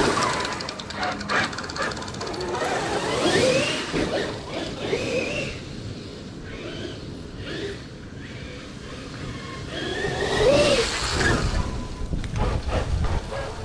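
Electric RC monster truck (Traxxas X-Maxx) revving and driving, its motor whine rising and falling several times as it plows through a pile of dry leaves.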